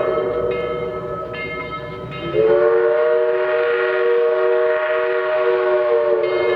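Southern 4501's steam whistle blowing a long chord of several notes. It is softer at first, then swells louder and slightly higher about two seconds in, holds, and sags a little in pitch near the end.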